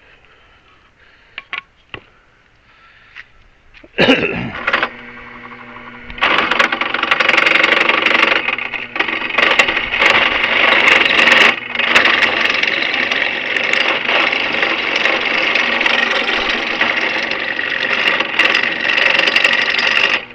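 Electric drill starting up about four seconds in, easing off, then running steadily under load from about six seconds on while boring a hole through for the shaft. A few light clicks come before it.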